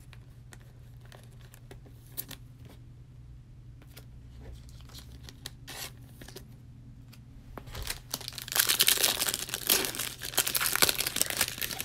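A foil trading-card pack being torn open and crinkled, loud from about eight seconds in. Before that, only a few faint clicks of cards being handled.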